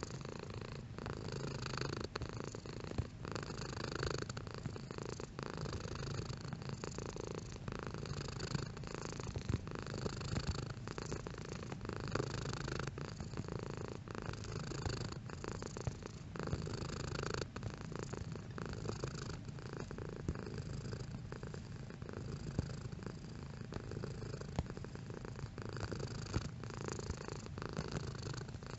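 Domestic cat purring steadily and continuously, the sound rising and easing in a regular rhythm with each breath, about one cycle a second.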